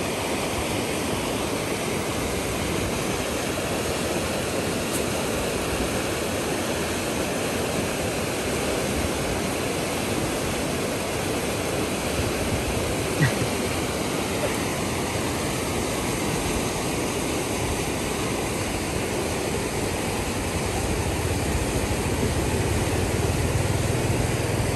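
Fast river water rushing and churning in white water, a steady noise with one sharp click about halfway through.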